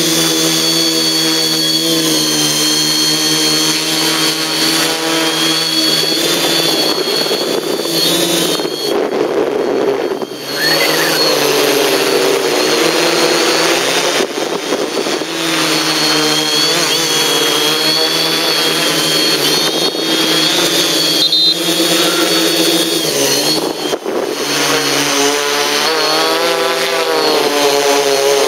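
Quadcopter's electric motors and propellers whining in flight, the pitch rising and falling as the throttle changes. The power drops briefly twice.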